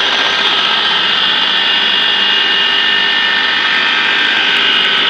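Peanut butter machine (a vertical colloid mill driven by an electric motor) running while it grinds peanuts into paste. It gives a loud, steady high-pitched whine over an even grinding noise.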